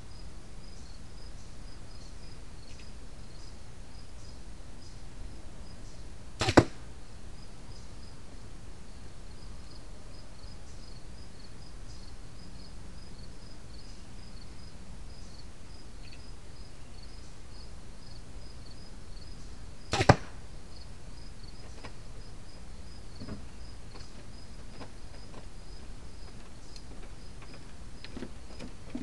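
Two bow shots about 13 seconds apart, each a quick double sound: the string's release and, a fraction of a second later, the arrow striking the archery target. Insects chirp in a fast, steady ticking throughout.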